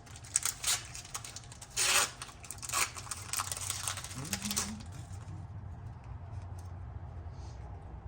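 Foil booster pack wrapper being torn open and crinkled, a run of sharp crackling rips with the loudest tear about two seconds in, dying down to a few faint rustles after about five seconds.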